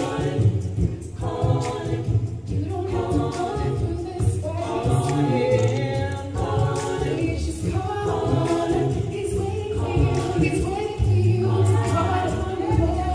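A cappella gospel vocal group singing, several voices together with no instruments.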